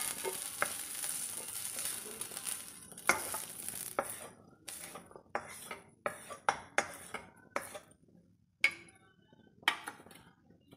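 Wooden spatula scraping fried green chillies, garlic and curry leaves out of a metal kadai. A faint sizzle of leftover oil dies away over the first few seconds, followed by a run of sharp scrapes and knocks of the spatula against the pan.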